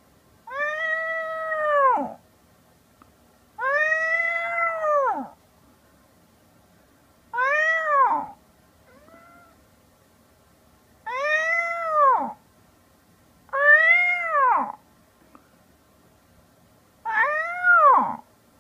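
A tabby kitten and a person imitating a cat trading meows. There are six long calls, a second or two apart, each rising and then falling in pitch.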